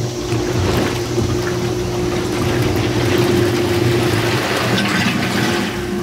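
Hot tub jets running: water churning and bubbling over the steady hum of the pump motor.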